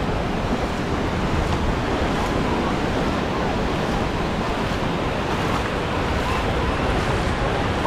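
Steady wash of surf with wind on the microphone, and indistinct voices of people in the background.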